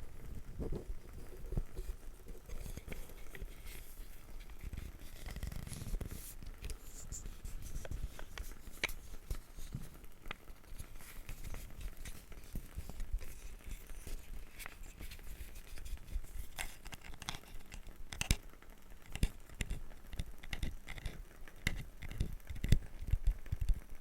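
Close-miked handling of small wooden objects: irregular clicks, light taps and scratchy scraping and rustling, with a few sharper clicks near the end.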